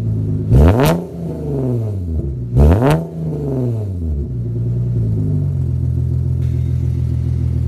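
Nissan 370Z's VQ37 V6 through a single-exit Tomei titanium exhaust, revved twice in quick blips about two seconds apart, each rising and dropping sharply, then settling to a steady idle.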